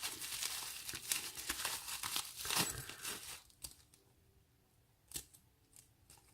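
Packaging crinkling and tearing as a lock is unwrapped, stopping about three and a half seconds in; a single light click follows a little after five seconds.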